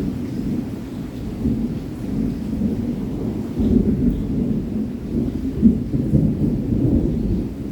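Distant thunder rolling in a long low rumble over steady rain. The rumble swells from about halfway through and dies away at the end.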